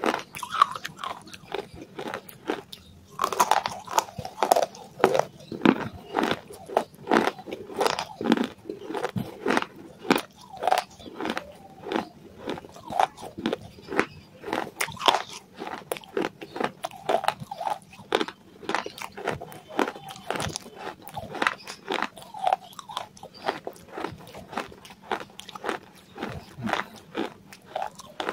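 Close-up mouth sounds of someone biting and chewing crunchy chunks of clay: a steady run of crisp crunches, about two or three strong ones a second, with softer crackles between them.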